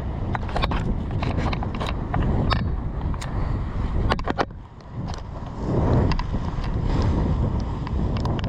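Wind and sea noise on the deck of a sailing yacht underway in strong wind, with wind buffeting the microphone and scattered sharp clicks and knocks. There is a louder rush about six seconds in.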